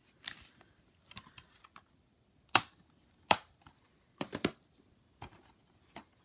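Plastic DVD cases being handled, giving a string of sharp plastic clicks and taps. The two loudest come close together near the middle, followed by a quick cluster of three.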